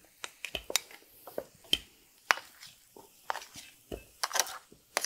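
Kitchen clatter of cooking utensils: irregular light clicks and knocks at the stove and a wooden board where chapati dough is being rolled out with a rolling pin.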